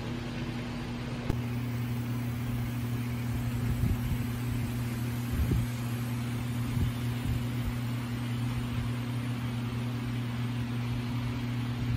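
HO scale model diesel locomotives running on the layout's track: a steady electric hum with a few scattered clicks and knocks from the wheels on the rails.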